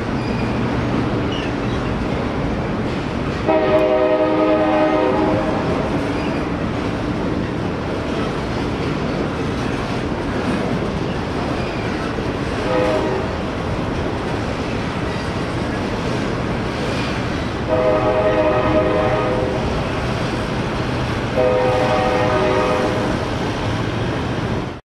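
Steady rumble of a double-stack container train rolling across a railroad bridge. A multi-note train horn sounds four times over it: long, short, long, long.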